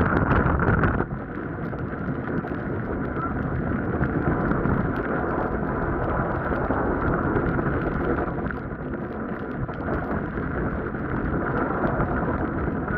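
Boat's outboard motor running under way through floodwater, mixed with wind buffeting the microphone; louder for about the first second, then steady.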